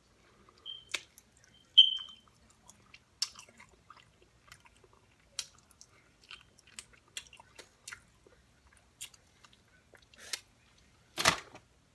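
Close-mic mouth sounds of someone eating: chewing, with scattered wet smacks and clicks. There are two short squeaky smacks about one and two seconds in, and a sharp click near the end.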